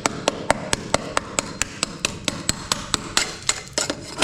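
A hand tool picking and chipping at soaked wall compound on a rusted metal window sill: quick sharp taps, about five a second.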